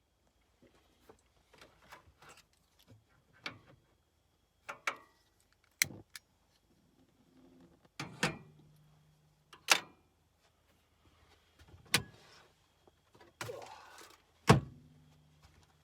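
Things being handled and put down in the back of a camper van: a string of irregular clicks, knocks and clunks, the sharpest about six, ten, twelve and fourteen and a half seconds in. Under them runs the low steady hum of the 12-volt freezer's compressor.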